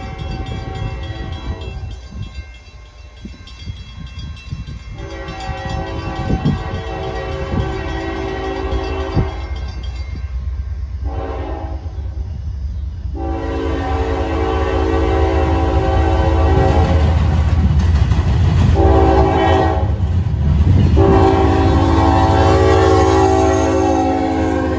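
The air horn of a Norfolk Southern GE ES44AC diesel locomotive blows a series of long blasts, with a shorter one among them, as it approaches. Beneath the horn, the low rumble of the locomotive and its train grows steadily louder as it draws near and passes close by.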